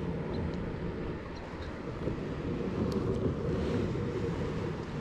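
Wind buffeting the microphone on a fishing kayak on open water: a steady low noise, with a few faint small clicks above it.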